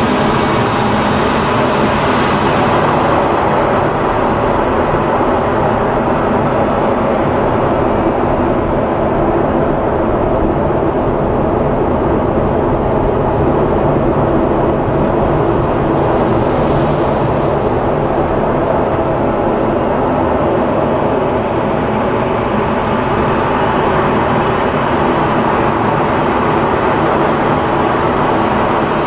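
Steady roar of an F-16's single turbofan engine and rushing airflow, heard from inside the cockpit during display flight. A high whine sits on top; it dips in pitch about halfway through and rises back.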